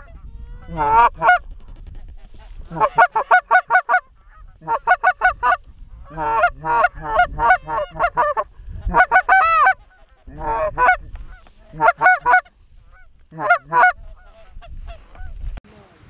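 Goose honking and clucking, loud and close, in quick runs of several honks at a time with short pauses between.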